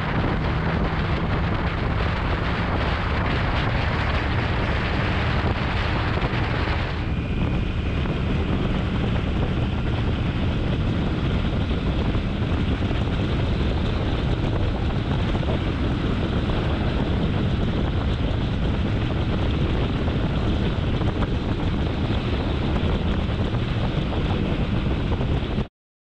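Motorcycle engine running steadily on the move, with heavy wind noise on the microphone. The hiss lightens about seven seconds in, and the sound cuts off abruptly near the end.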